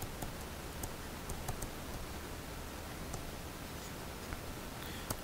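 Faint light clicks and taps of writing, scattered irregularly over a steady low room hiss.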